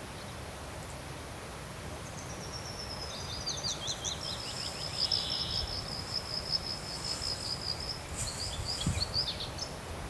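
A small songbird singing a high, fast song. It opens with quick falling notes about two seconds in, runs into a long even trill, and breaks into more quick notes near the end. A low wind rumble on the microphone runs underneath.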